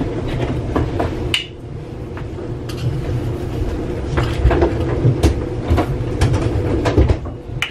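Light clicks and taps of a measuring spoon and a dried-parsley jar as a spoonful of herbs is scooped and added to a stainless Instant Pot, over a steady low hum.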